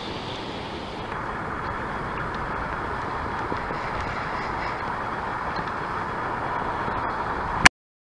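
Steady rushing of wind and water on an outdoor microphone out on open sea. It grows a little brighter about a second in and cuts off suddenly with a click near the end.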